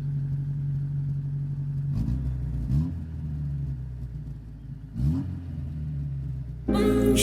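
VAZ 2106's four-cylinder engine idling, blipped up in revs twice and dropping back to idle. Music cuts in just before the end.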